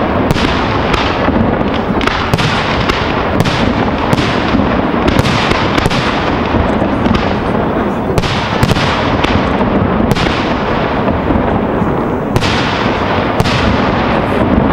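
Fireworks display: aerial shells bursting in rapid succession, a steady run of sharp bangs several a second, their echoing reports running into one another.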